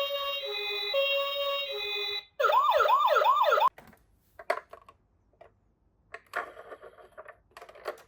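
Toy ambulance's electronic siren playing the two-note hi-lo "pee-po" of a Japanese ambulance, then switching to a fast rising-and-falling wail, about three sweeps a second, that cuts off suddenly. A few light clicks and taps follow.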